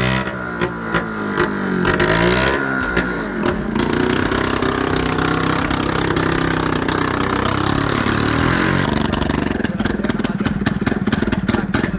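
Scooter engine running through an open exhaust with the silencer removed, revved up and down in the first few seconds, then held more steadily. It breaks into a fast, rough rattle near the end.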